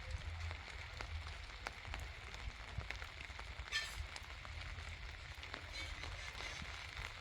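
Steady rain, with scattered drops ticking on nearby surfaces over a low rumble. A brief high-pitched sound rises above it about four seconds in.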